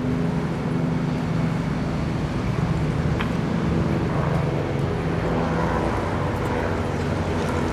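Steady low engine drone of city and river traffic, with a few faint clicks of stones being handled.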